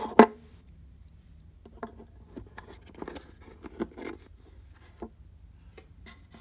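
A sharp knock just after the start, then scattered light taps and scrapes as a ukulele bridge is moved about and set in place on the unfinished top of the body.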